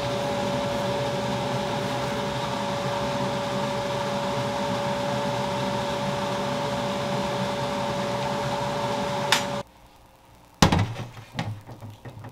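Kitchen extractor fan over a gas stove running with a steady hum and one constant tone, cut off with a click about nine and a half seconds in. After a second of quiet come a few sharp knocks and clatter, the cast-iron griddle being handled in a stainless steel sink.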